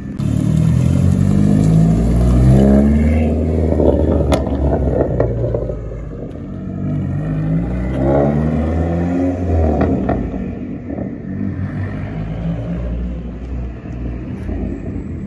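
Dodge Neon SRT-4's turbocharged four-cylinder engine revving up and down through several pulls as the car is driven around. It is loudest in the first few seconds, climbs again about eight seconds in, then settles to a lower, steadier run after about ten seconds.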